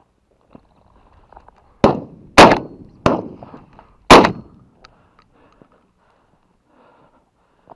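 Shotgun fire: four sharp shots within about two and a half seconds, the second and fourth the loudest, each followed by a short decaying echo.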